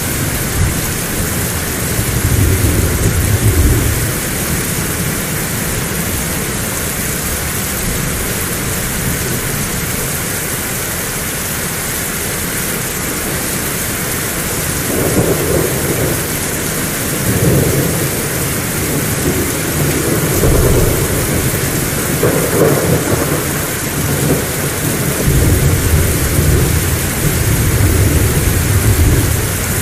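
Heavy rain falling steadily, with rolling thunder: low rumbles swell briefly near the start and then come back again and again through the second half.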